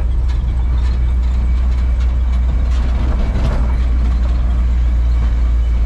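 Steady low drone of a 1952 Chevrolet one-ton truck's straight-six engine running, with road noise, heard from inside the cab as the truck rolls along.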